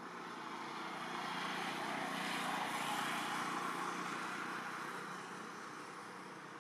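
A vehicle passing by: a broad rush of noise that swells over a couple of seconds, peaks midway and fades away.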